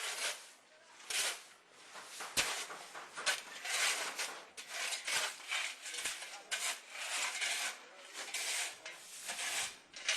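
Repeated rough scraping or rasping strokes, about one a second, with a sharp knock a little over two seconds in.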